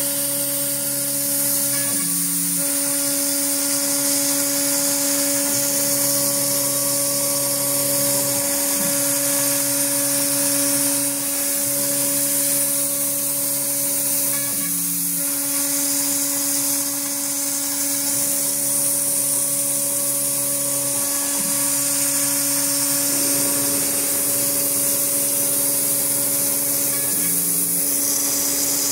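CNC router spindle milling slots into a plastic sheet: a steady machine whine over a high hiss, with a lower hum that changes pitch every few seconds as the machine changes moves. An air compressor runs alongside.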